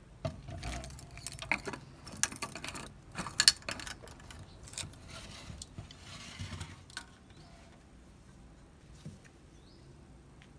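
Clicks and knocks of small hard objects handled on a wooden bench: a plastic water bottle set down and wooden chopsticks picked up. The clicks cluster in the first four seconds, followed by softer handling sounds and a single click near the end.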